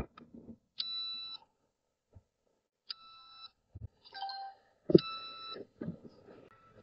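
Electronic beeps from GNSS surveying equipment: four short tones about half a second each, one of them lower-pitched. A few dull knocks come between them, the loudest about five seconds in.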